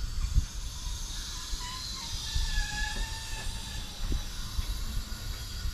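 Engine and gearbox being lowered slowly on a jack: a faint wavering squeal and a few low knocks over a steady hiss.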